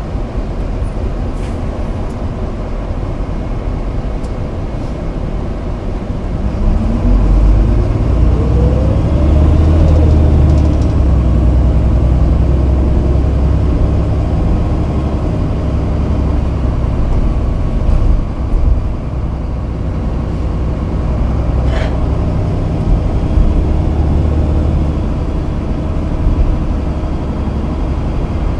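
Inside a Toei city bus: the engine's steady low rumble swells, and a whine rises in pitch as the bus pulls away and gathers speed. The whine then falls back and the bus settles into a steady running drone, with one short sharp knock or click about three-quarters of the way through.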